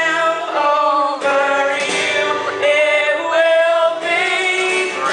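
Live song: a woman singing into a microphone over guitar accompaniment, with sung lines and held notes running throughout.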